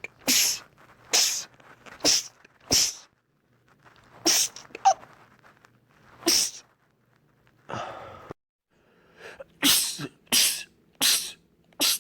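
A man sneezing over and over: about ten short, sharp sneezes, in quick runs less than a second apart, with longer gaps in the middle.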